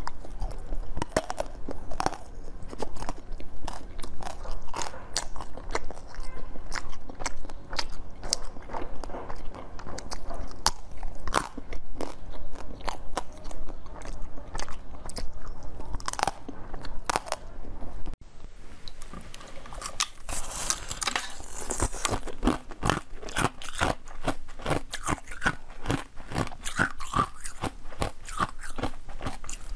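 Close-miked biting and chewing of frozen basil seed ice, each bite a sharp crunch of ice between the teeth. About two-thirds of the way through, it changes to faster, crisper crunching of a block of green ice.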